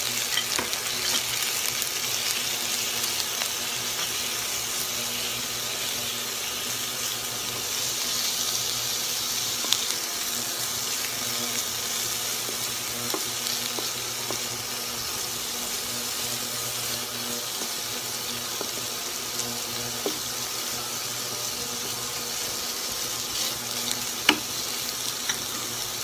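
Shrimp sizzling in hot oil in a nonstick wok, a steady frying hiss, as a wooden spatula stirs them, with a couple of sharp spatula taps against the pan.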